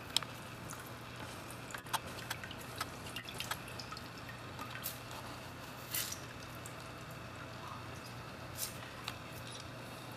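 Oil and water dripping from a squeezed oil-absorbent pad into a plastic tub of water: irregular, unevenly spaced drips and small splashes over a faint steady low hum.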